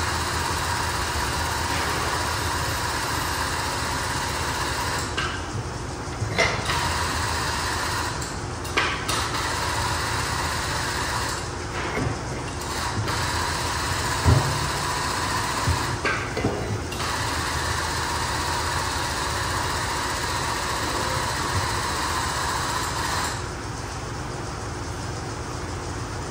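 A powered hydraulic pump runs steadily, driving a hollow-ram cylinder that presses a bushing into a freshly bored link. It stops briefly four times, with small clicks and a thud partway through, and shuts off about 23 seconds in.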